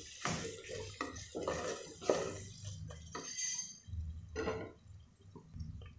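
A spoon stirring and scraping masala against the metal of a pressure cooker pot during sautéing, with irregular scrapes and light clinks that thin out and grow quieter in the second half.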